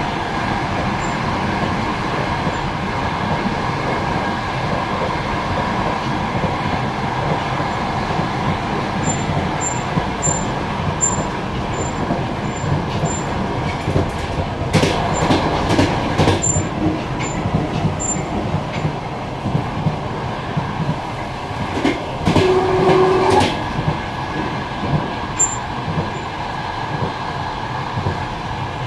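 Passenger train carriage running at speed, heard from inside the carriage: a steady rumble of wheels on the rails with knocks and rattles at times. About three-quarters of the way through, the noise grows louder for a second or so and a short steady tone sounds over it.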